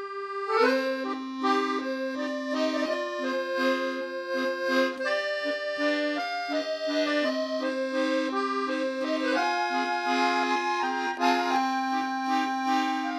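Background music: an accordion playing a melody over held lower notes.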